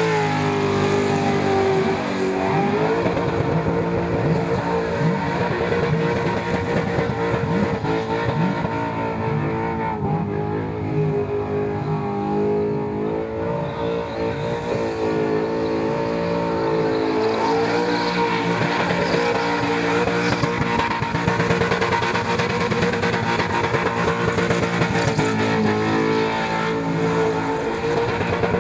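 Holden Commodore ute's GM LS V8 held at high revs during a burnout, the revs dipping briefly and climbing back a few times, with the rear tyres spinning against the pavement.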